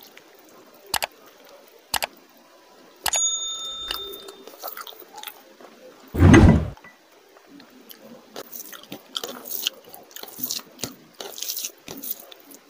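Wet squishing and crackling of a hand mixing rice with curry gravy and eating it, growing busier in the second half. A bright bell-like chime rings about three seconds in, and a loud low thump comes a little past halfway.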